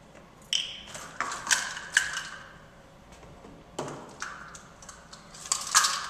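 Eggs tapped against the rim of a bowl to crack them: a series of sharp taps and clinks, four in the first two seconds, one about halfway and two more near the end, each with a short ring.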